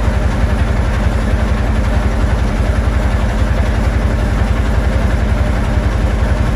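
Motorboat engine running steadily with a low, rapid throb.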